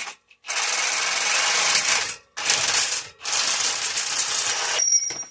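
Power tool working an aluminum bus bar in three loud bursts, about a second and a half, then under a second, then about a second and a half, with a brief high whine as it stops near the end.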